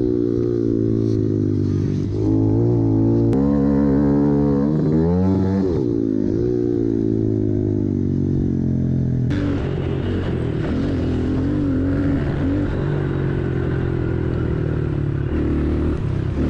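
Four-stroke dirt bike engine revving on a motocross track, its pitch rising and falling over and over with throttle and gear changes. The sound changes abruptly about nine seconds in.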